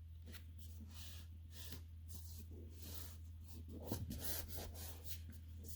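Faint rubbing and rustling of cardstock being slid and pressed down by hand onto a card base, with a light tap about four seconds in. A steady low hum runs underneath.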